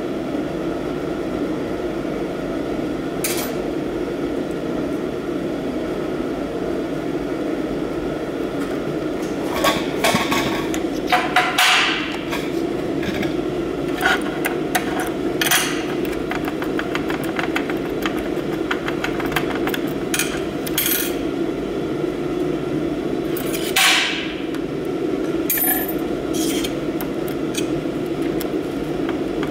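Gloved hands handling small steel parts: scattered clicks, clacks and clinks as a magnetic base is set down on a metal sheet and washers and a nut are fitted onto it, over a steady hum.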